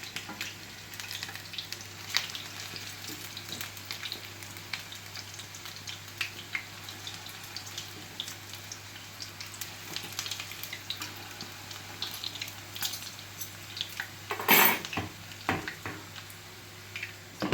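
Pancake batter frying in shallow sunflower oil in a frying pan, sizzling steadily with scattered crackles and pops. A brief, louder noise about three-quarters of the way through.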